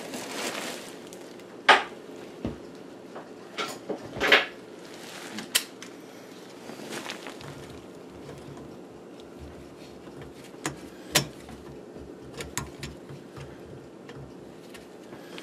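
Metal hand tool clinking and knocking against the water supply pipe and shutoff valve under a sink: scattered sharp clanks, the loudest two in the first few seconds, then lighter taps spread through the rest.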